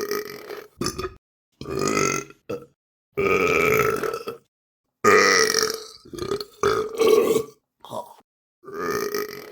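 A series of about ten separate burps, some short and some long and drawn out, each cut off by a silent gap.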